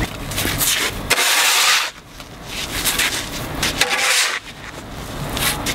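A long-handled tool scraping wet flood mud and grit across pavement, in several separate hissing strokes, the longest about a second in.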